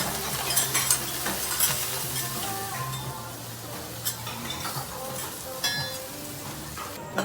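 Food sizzling on a teppanyaki griddle, with scattered clicks and clinks of metal spatulas and utensils, one ringing clink about five and a half seconds in.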